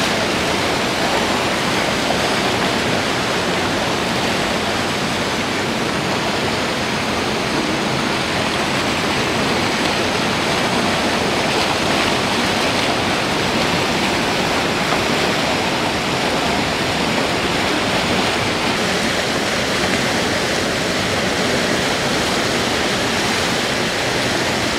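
Steady rush of fast-flowing water, an even, unbroken roar.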